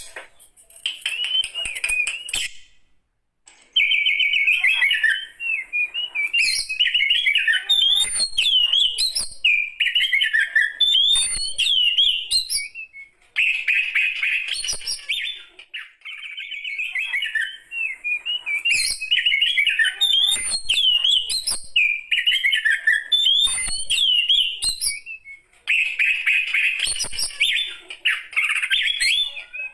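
A mature Oriental magpie-robin (kacer) singing long bouts of fast, varied, warbling phrases, broken by a few short pauses.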